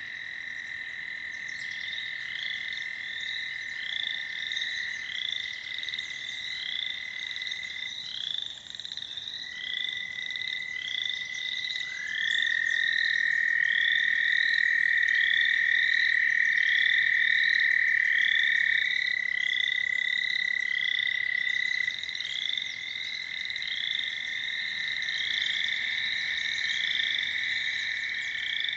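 A chorus of American toads, their long steady high trills overlapping, one louder trill running for about seven seconds near the middle. Over them, short high calls repeat about once a second.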